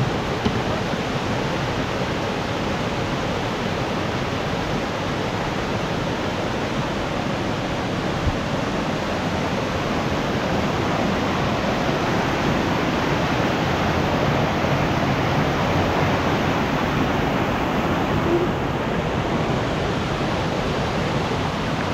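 Mountain stream rushing over boulders in small cascades: a loud, steady rush of water that grows a little louder in the second half.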